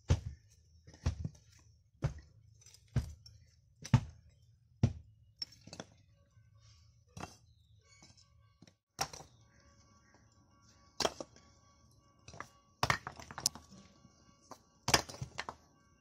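Fired clay bricks being set down one by one onto other bricks, giving sharp clunks and knocks, about once a second at first and then more spaced out, some in quick clusters.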